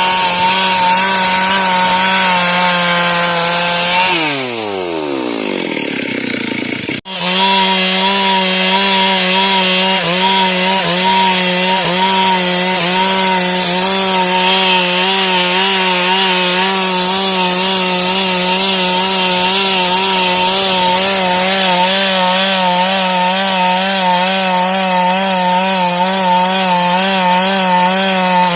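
Stihl MS 382 two-stroke chainsaw running at full throttle, cutting dry wood. About four seconds in the revs fall away. After a sudden break it is back at full throttle, its pitch wavering slightly under the load of the cut.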